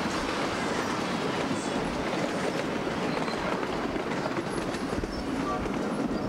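Ride-on miniature train rolling along its track, a steady rumbling rolling noise from the wheels and cars.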